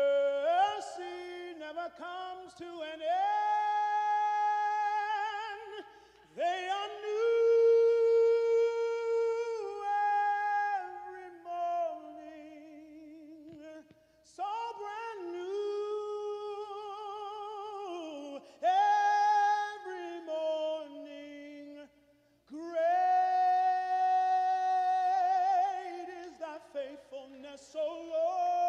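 A man singing solo and unaccompanied: long held notes with vibrato, in phrases broken by short pauses.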